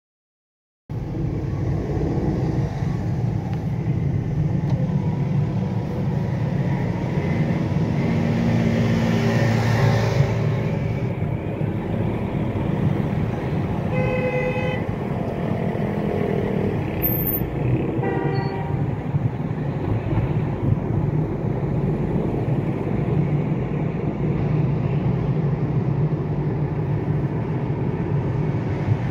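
Steady road and engine noise from a car driving through city traffic, with a vehicle horn sounding for about a second around fourteen seconds in and briefly again around eighteen seconds.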